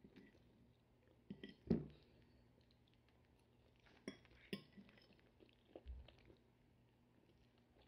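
A cat eating scraps of grilled sole off a hard, smooth surface: quiet, scattered mouth clicks and smacks of chewing and licking, with one louder knock a little under two seconds in.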